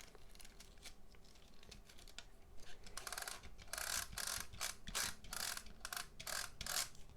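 Plastic VHS cassette parts being worked by hand, giving a run of quick ratcheting clicks that starts about three seconds in.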